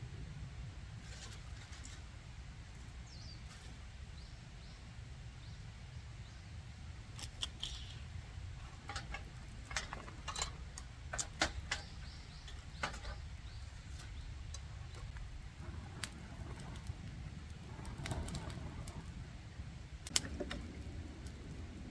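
Scattered light clicks and small rattles, bunched between about seven and thirteen seconds in and once more near the end, over a low steady rumble.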